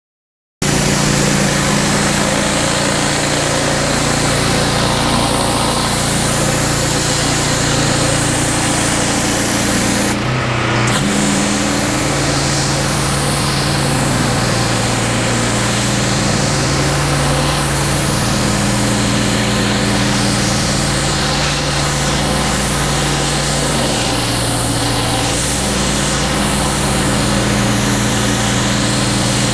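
Gas pressure washer running steadily, its engine drone under the loud hiss of a high-pressure water jet on a concrete driveway. The sound cuts in abruptly about half a second in, and the spray hiss drops out briefly around ten seconds in.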